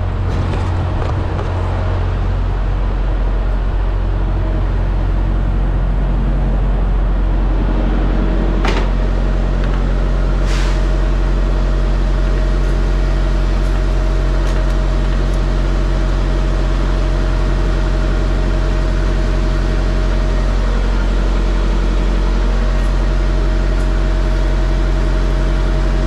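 Semi truck's diesel engine idling with a steady low hum while a fuel nozzle fills the truck's saddle tank with diesel; two short clicks about nine and ten and a half seconds in.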